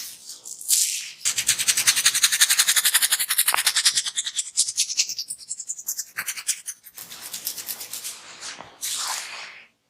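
Fingernails scratching through hair on the scalp in a head massage, a fast run of short rubbing strokes at first, then slower and softer strokes.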